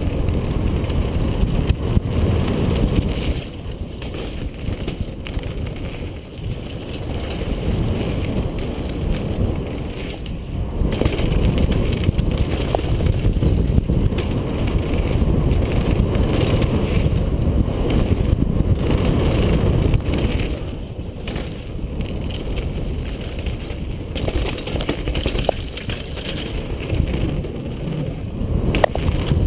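Wind buffeting a GoPro microphone and the tyres and frame of a mountain bike rumbling and rattling down a dirt trail, with a few sharp clicks.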